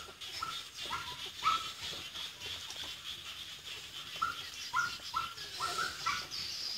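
A small animal's short, repeated high calls, about nine in all: four in quick succession, a pause of about three seconds, then five more closer together. A steady high hiss runs behind them.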